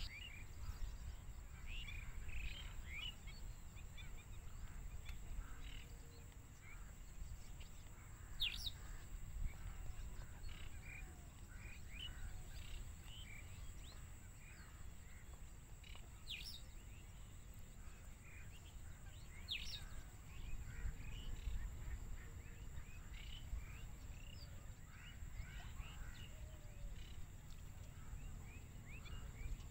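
Outdoor ambience of small birds chirping here and there, over a constant low rumble and a steady faint high whine, with a few sharp clicks.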